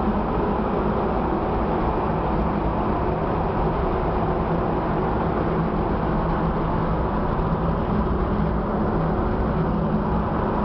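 Steady drone of a ship under way: a low machinery hum with a few steady tones, under a constant rushing noise of wind and sea.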